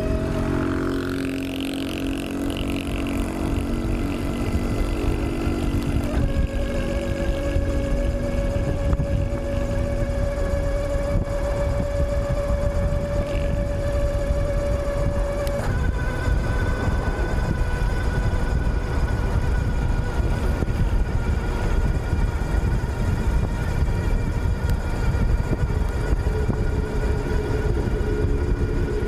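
Wind rushing over the handlebar-mounted camera microphone as a 48 V mid-drive electric bike runs flat out at about 45–50 km/h, with a steady high motor whine under it that steps down in pitch about six seconds in and shifts again about halfway through.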